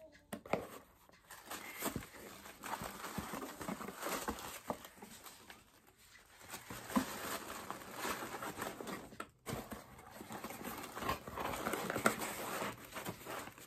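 Close rustling and crinkling of craft materials and packaging being handled, with many small irregular clicks and taps, pausing briefly twice.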